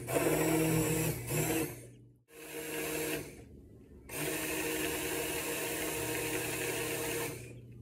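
Electric immersion blender running in a large pot of tomato soup. It buzzes steadily in three bursts: about two seconds, then a short one, then about three seconds, stopping cleanly between them.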